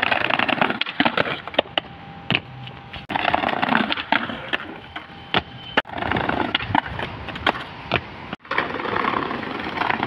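Skateboard wheels rolling on rough pavement, broken by sharp clacks of the board popping and slapping down. These come in several short takes of attempts at jumping a set of four stairs.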